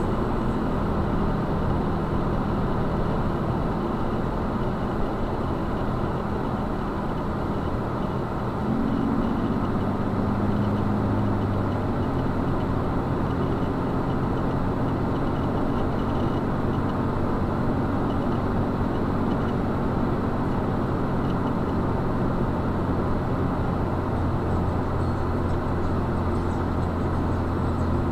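Vehicle driving on a wet road, heard from inside the cab: a steady engine hum over tyre and road noise. The engine note rises about nine seconds in and holds.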